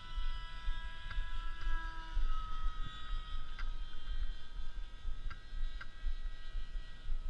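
Electric motor and propeller of a Sky Surfer v5 RC plane whining steadily in flight, its pitch drifting slightly, over a low wind rumble on the microphone and a few faint clicks.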